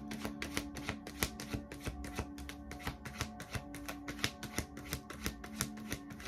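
A tarot deck being shuffled by hand: a quick, even patter of card clicks, several a second, over soft background music with held tones.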